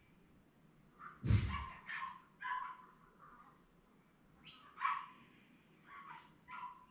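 A dog barking: several short barks at uneven intervals, the first, about a second in, the loudest.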